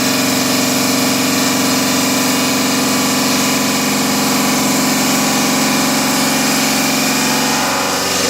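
PLC-600 stone-cutting machine for granite and marble running steadily: a loud, even hum under a high hiss. The hum eases slightly near the end.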